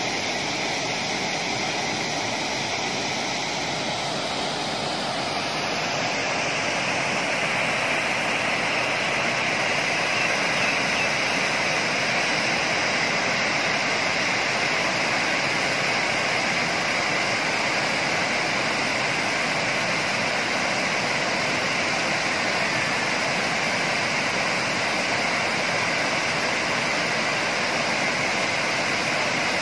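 Water pouring over the concrete spillway of a reservoir dam in a steady rush, growing a little louder and brighter about five or six seconds in.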